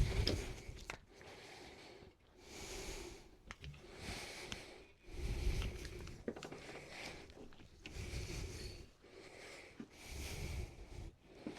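A hand tool worked back and forth on wood, in repeated rubbing strokes of under a second each, about one a second.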